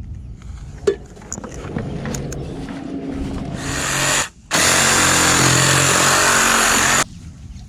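A handheld power tool's motor running in two bursts: it builds up, stops briefly, then runs loud and steady for about two and a half seconds before cutting off sharply. A sharp knock comes about a second in.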